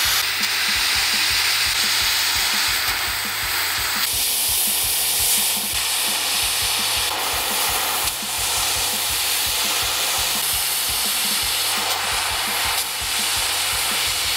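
Oxy-propane cutting torch gouging old steel plate off a boat hull: a steady, loud hiss from the gas jet and the burning metal.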